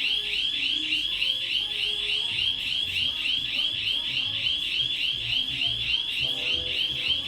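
Shop panic alarm sounding: an electronic warbling tone sweeping up and down rapidly, about four times a second, with no break.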